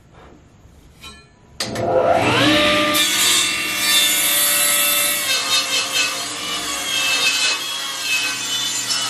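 An electric power saw starts about a second and a half in, its motor whining up to speed, then runs steadily while cutting through wood.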